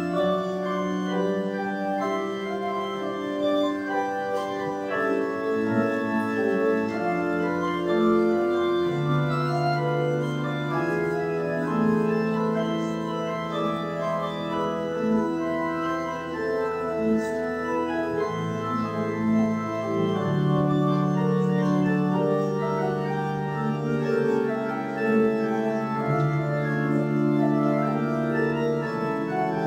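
Organ playing slow, sustained chords over bass notes that change every few seconds.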